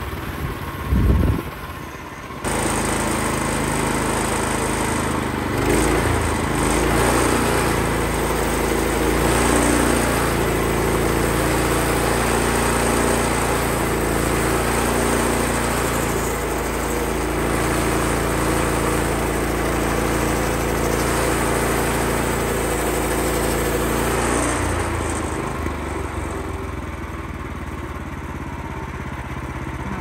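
Woodland Mills HM126 portable bandsaw mill's Kohler engine running while the blade is fed through a live oak cant, its note shifting as the cut loads it, with a thump about a second in. The owner suspects the engine is not reaching its full 3600 RPM, so the blade struggles in the cut.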